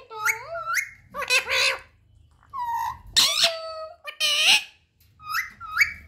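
A baby rose-ringed parakeet calling: short rising whistles alternate with harsh squawks in quick succession, with brief pauses between them.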